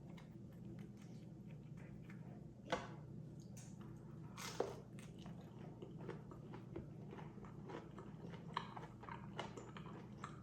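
A person eating fried chicken tenders close to the microphone. Two crisp bites come about three and four and a half seconds in, followed by soft, irregular chewing.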